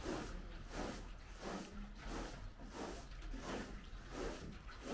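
Short straw broom sweeping a carpet: a rhythmic swishing of bristles, about two strokes a second.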